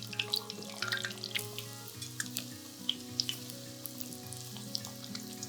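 Hard-boiled eggs deep-frying in hot oil: scattered crackles and small pops of spattering oil.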